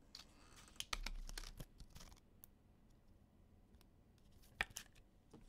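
Trading cards being handled on a table mat: a flurry of small clicks and scrapes in the first two seconds, then a couple of light taps near the end.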